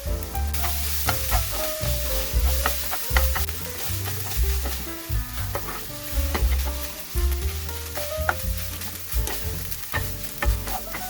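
Kimchi fried rice sizzling in a pan while a spatula stirs and scrapes it, with frequent sharp clicks of the spatula against the pan. Background music with a bass line plays underneath.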